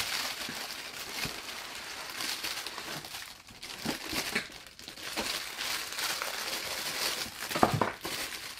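Clear plastic packaging bags crinkling and rustling as bagged fidget toys are handled and swept across a table.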